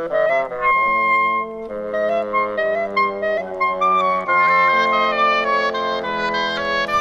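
Woodwind quintet playing: flute, oboe, clarinet, bassoon and French horn sounding several parts at once in sustained, changing notes.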